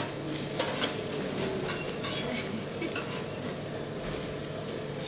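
Omelettes frying on a flat griddle, a steady sizzle, with occasional light clinks of metal utensils.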